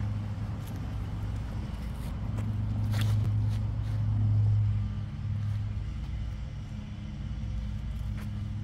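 A steady low rumble runs underneath. About three seconds in, during a disc golf drive off the tee, there is one short sharp sound.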